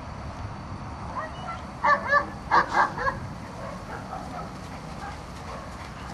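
Four loud, short animal calls in quick succession about two seconds in, with a fainter fifth just after.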